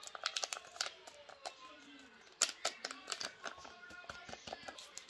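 Small paper packet of vanilla being handled and tapped as it is shaken out over flour: a run of light crinkles and sharp little clicks, with a louder flurry about halfway through.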